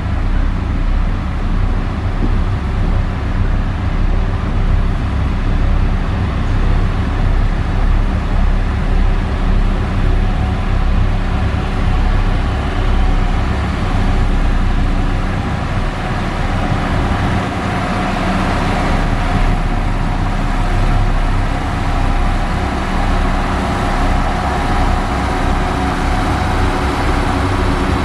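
Diesel engine of heavy road-construction machinery running steadily under load, a deep continuous drone with no pauses.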